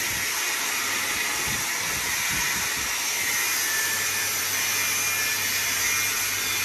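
Electric arc welding on steel: a steady, even hiss from the arc with a faint low hum beneath, starting abruptly.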